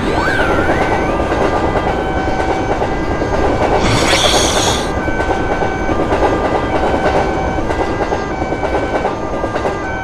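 Passenger train running through a level crossing: steady rumble with the clickety-clack of wheels over rail joints, and a short burst of hiss about four seconds in.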